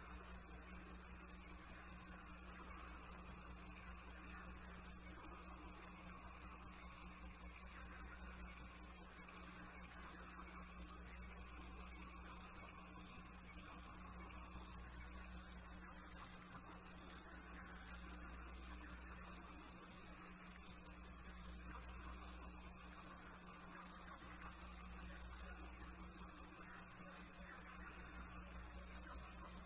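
Crickets chirping at night in a fast, steady pulse of about five chirps a second. A short, separate call sounds about every five seconds.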